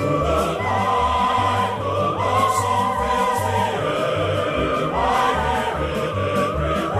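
Background music: a choir singing long, wavering held notes in an operatic style over a pulsing bass.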